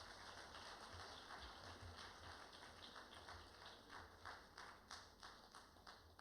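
Audience applauding faintly, the clapping thinning out to scattered claps near the end.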